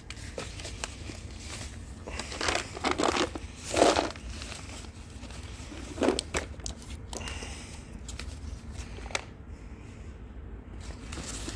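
Plastic bag of nuts crinkling and rustling as it is handled, in irregular crackles with louder clusters about three to four seconds in and again around six seconds.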